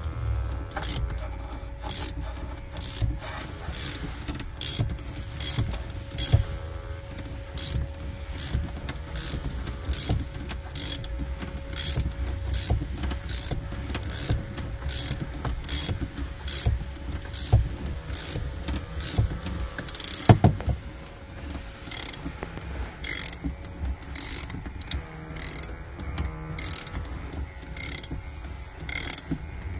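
Ratcheting winder of an Equalizer Viper cord windshield-removal tool being cranked in a steady run of clicks, about one or two a second, reeling the cutting cord through the windshield's urethane bead. One louder knock about twenty seconds in.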